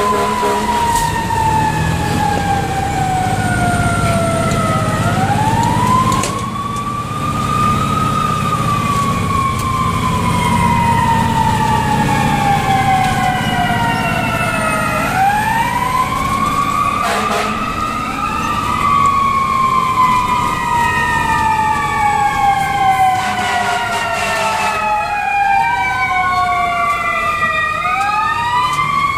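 Fire engine's mechanical siren, heard from inside the cab, winding up over a few seconds and then slowly dying away, in long cycles about every ten seconds over the engine's rumble. Near the end a second siren overlaps it.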